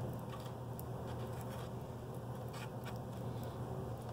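Faint scratchy patter of a small brush dabbing a gritty mix of glue, paint and dry dirt into the wheel well of a toy Jeep, over a steady low hum.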